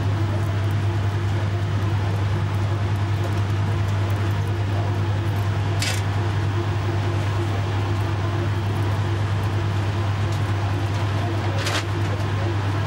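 A steady, strong low hum with a constant hiss over it, like a running machine, and two brief sharp hisses, one about halfway through and one near the end.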